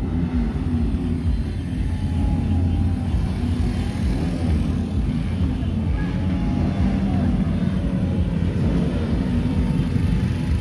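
Engines of a convoy of motorcycles and cars running continuously, with engine pitch rising and falling as individual vehicles rev.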